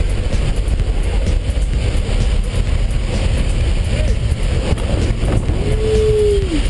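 Loud, steady rush of wind and aircraft engine noise through the open door of a jump plane in flight, buffeting the microphone.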